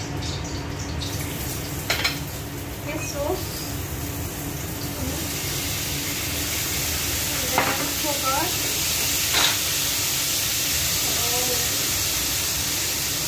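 Food sizzling in hot oil in a wok, swelling into a steady frying hiss about five seconds in, with a few sharp clinks of the utensil against the pan.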